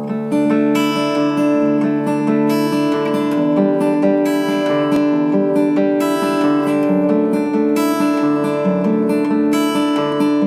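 Background music of strummed acoustic guitar playing steady chords.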